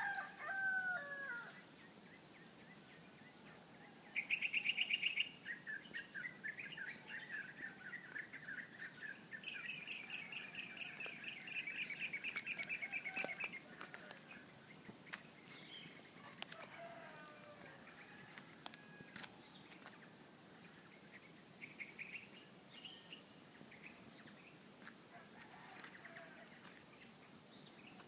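A rooster crows right at the start, its call falling in pitch. From about four seconds in, a songbird sings a run of rapid trills, the loudest a short burst followed by longer trills that stop at about thirteen seconds, with fainter calls later. A steady high insect buzz runs underneath.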